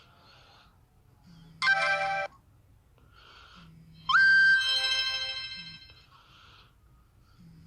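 Two short electronic phone tones from a Nokia 5230: a brief chord about a second and a half in, then about four seconds in a bright tone that swoops up quickly, holds and fades away over about two seconds.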